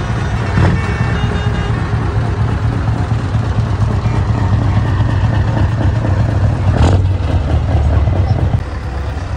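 Scania V8 truck diesel engine running with a deep, steady rumble through an open-pipe exhaust, easing off slightly near the end.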